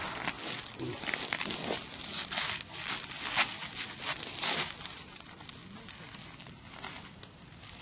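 Black plastic sheeting crinkling and rustling as it is handled against the side of a wire-mesh boar trap, in irregular crackly bursts that are busiest in the first five seconds and softer after.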